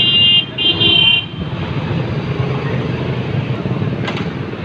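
A vehicle horn honks twice in quick succession, each about half a second long, over the steady din of street traffic.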